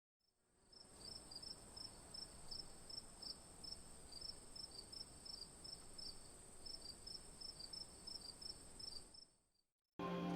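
Crickets calling: a faint, steady, very high trill with a pulsing chirp beneath it, repeating about three times a second. It fades in about a second in and cuts off shortly before the end.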